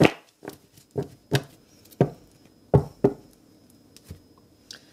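Tarot cards being laid down one by one on a table, each landing with a sharp tap: about six taps, irregularly spaced.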